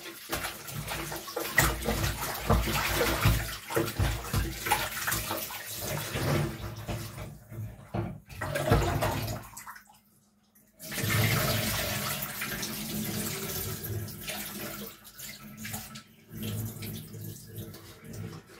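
Running kitchen tap and splashing water as raw chicken pieces are rubbed and rinsed by hand in a stainless steel bowl in the sink. The sound drops out for about a second near the middle, then the splashing goes on.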